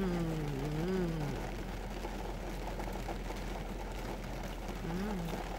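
Steady rain pattering on the roof of a car, heard from inside the cabin. A person hums a drawn-out 'mmm' at the start and a short one near the end.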